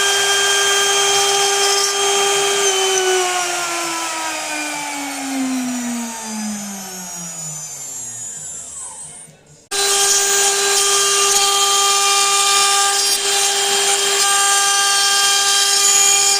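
CNC router spindle whining at a steady high speed, then winding down with a steadily falling pitch over about six seconds until it fades out. It comes back abruptly at the same steady full-speed pitch about ten seconds in.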